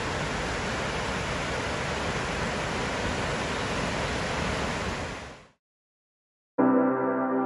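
Steady rush of ocean surf, fading out about five seconds in. After a second of silence, music starts near the end.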